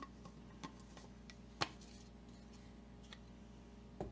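A few light clicks and knocks of small objects being handled on a wooden workbench, the loudest about one and a half seconds in, over a faint steady electrical hum.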